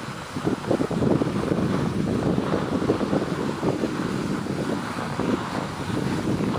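Wind buffeting the microphone while riding up a platter ski lift, over the scraping hiss of sliding along the packed snow of the lift track.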